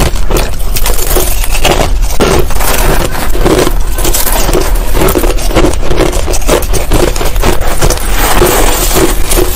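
Finely crushed ice crunching as it is chewed close to the microphone, a quick, unbroken run of crisp crunches, with a metal spoon scraping through ice in a bowl.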